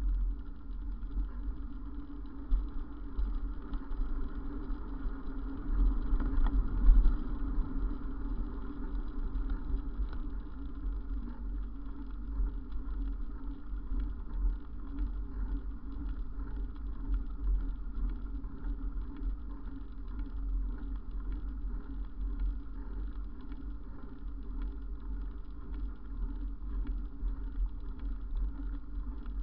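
Muffled wind rumble and road vibration on a camera's microphone while riding a bicycle, steady throughout, with a louder gust about six to seven seconds in.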